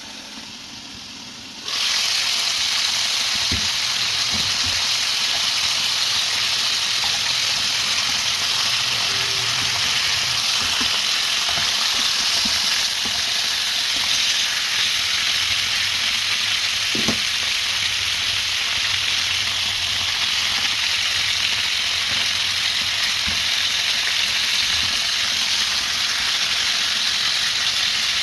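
Food frying in a pan, a steady sizzle that starts suddenly about two seconds in, with a few light knocks of a utensil.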